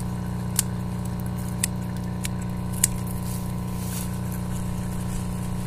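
A steady mechanical hum at several fixed pitches, with a few short sharp clicks spread through it as pepper plants are handled and trimmed.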